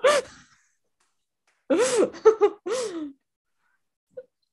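People laughing over a video call: a short burst just at the start, then about a second and a half of laughter around two to three seconds in, with dead silence between.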